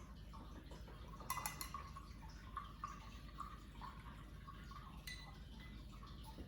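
Faint taps and watery dabbing of a paintbrush being wetted and worked over watercolour pans, with two sharper clicks, about a second in and about five seconds in.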